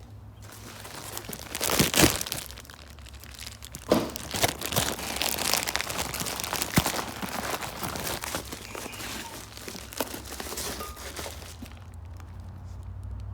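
Crinkling and rustling of packaging, likely plastic or paper wrap, as parts are handled, with several sharp clicks and knocks. It dies away near the end.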